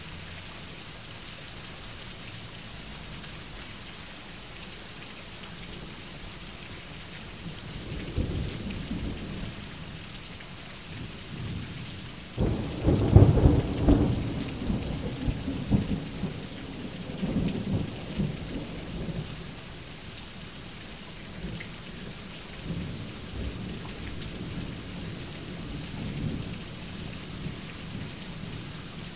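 Thunderstorm: steady rain falling, with thunder. A rumble comes about eight seconds in, then a loud clap about twelve seconds in that rolls on for several seconds, followed by fainter rumbles.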